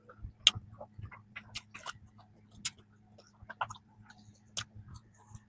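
Close-miked chewing of a flaky strawberry danish: irregular crisp crackles and wet mouth clicks, a few each second.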